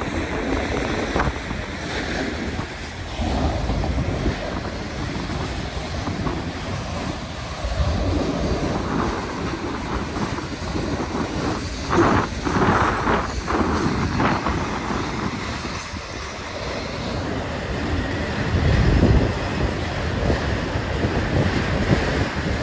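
Freight train of autorack cars rolling past: a steady rumble and rattle of wheels on rails, mixed with wind buffeting the microphone. A short, louder burst of rattling comes about halfway through.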